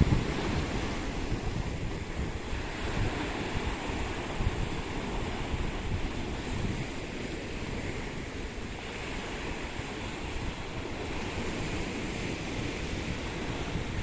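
Rough, stormy sea: surf breaking and washing in a steady roar, with wind buffeting the microphone.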